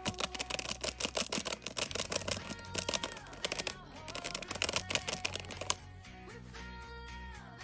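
Background music with a sung or played melody, over rapid crackling clicks of slime being squished and poked. The clicks stop about six seconds in, leaving the music alone.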